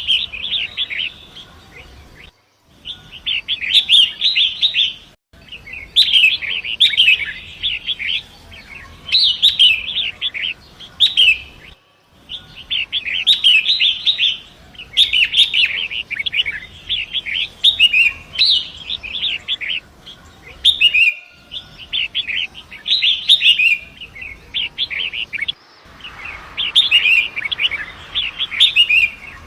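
Long-tailed shrike singing: burst after burst of rapid, scratchy chattering phrases, each a second or two long. A few abrupt brief dropouts break the song.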